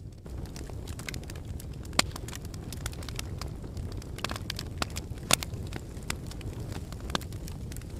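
Wood fire burning in a fireplace: a steady low rumble of flames with frequent irregular crackles and sharp pops, the loudest pops about two seconds in and just past five seconds.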